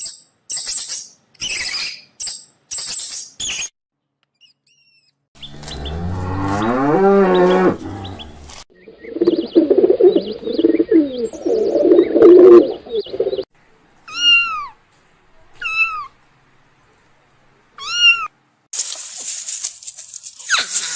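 A series of different animal calls, one after another with short gaps. First comes a long low call rising in pitch, then a stretch of harsh, noisy calls. Three short high calls that rise and fall come near the end.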